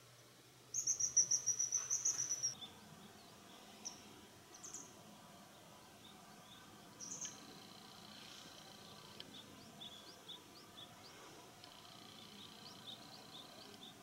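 Common kingfisher calling a rapid run of high-pitched notes for about two seconds, the continuous call that gives its presence away. Later, faint scattered short chirps from another small bird.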